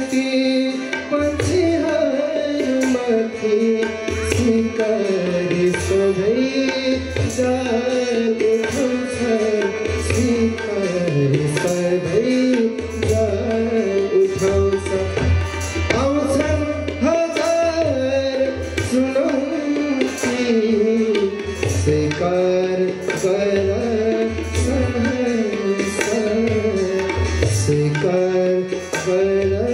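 Live Nepali song: tabla strokes in a steady rhythm under a harmonium melody, with an acoustic guitar accompanying.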